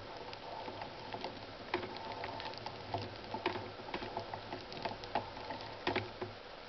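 Opened-up Shimano Alfine 11-speed internal gear hub turning, its internal mechanism giving irregular sharp ticks and clicks over a faint low hum. The turning and the clicking stop near the end.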